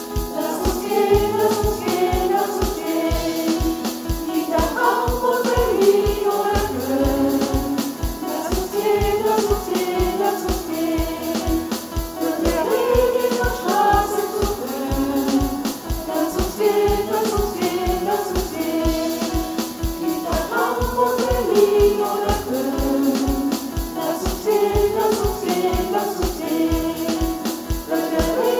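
A choir singing together to a steady, quick percussion beat.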